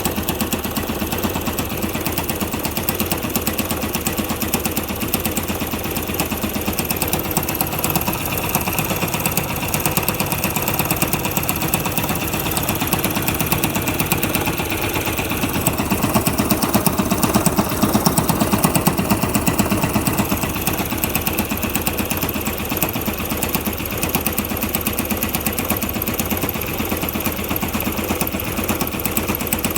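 Yamaha YBR 125 fuel-injected single-cylinder four-stroke engine running with a fast, even, rattling knock, growing a little louder about halfway through. The owner cannot tell what the knock comes from.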